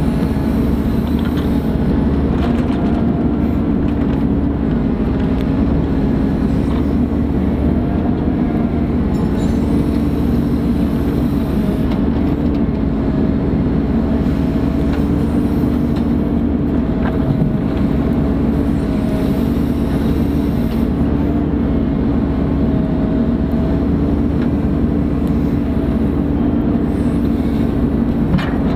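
Ponsse Buffalo forestry machine's diesel engine running steadily under load, with a higher whine that comes and goes every few seconds.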